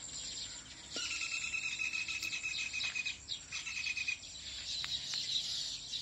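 Faint chorus of insects and birds: fast high chirping throughout, with a steady high whistled tone that starts about a second in, holds for about two seconds, then comes back briefly.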